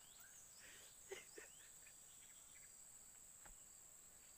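Near silence with a steady high-pitched insect drone and a few faint short sounds about a second in.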